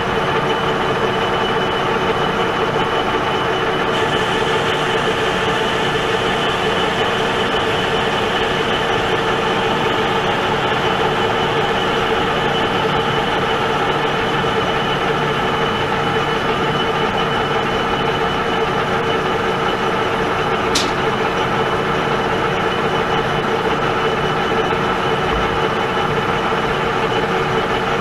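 Pratt & Whitney Model B metal lathe running steadily under power, a constant machine whine over gear and motor noise, with one sharp click about twenty seconds in.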